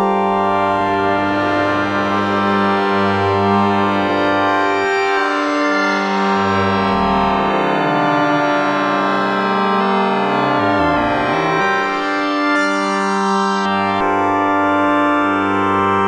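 Waldorf Microwave XT wavetable synthesizer holding a sustained chord while a knob is turned, so its tone sweeps and shifts through the middle; the low notes drop out and come back near the end. A little plate reverb is on it.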